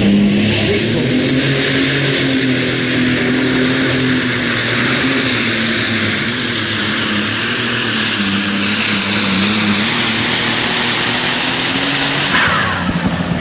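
Superstock pulling tractor's turbocharged engine at full power under load while dragging the sled. A high whine climbs steeply in the first second, then holds as a loud, steady scream over the engine's low note. About twelve seconds in the power is cut and the whine falls away.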